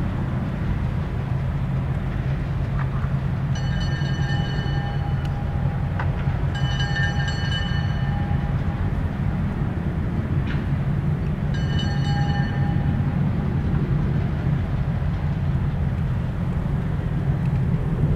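Diesel locomotive rumbling steadily while a locomotive horn sounds three blasts, the middle one the longest.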